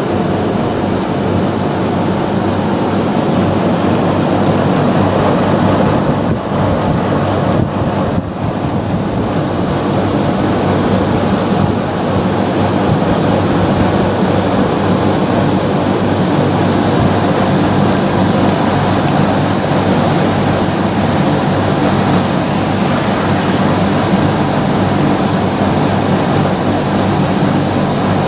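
Mitsubishi Electric Mr.Slim PUH-J140GA9 outdoor heat-pump unit running in heating mode: steady fan noise over the low hum of its fixed-speed (non-inverter) compressor.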